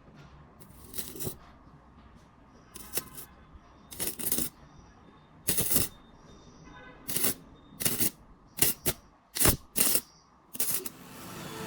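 Short, sharp crackling bursts of electric sparking from a homemade battery-powered welder, about a dozen at irregular intervals.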